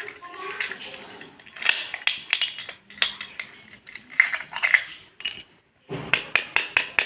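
A steel padlock and its keys handled on a hard tabletop, with irregular metallic clinks and clicks. After a short break near the end come quick, evenly spaced clicks, about five a second.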